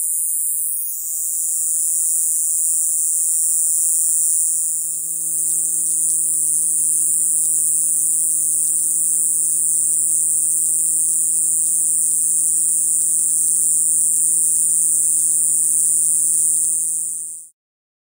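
Kayakiri katydid (Pseudorhynchus japonicus) singing one continuous, loud, high buzz with a cracked, rasping quality. The song cuts off abruptly near the end.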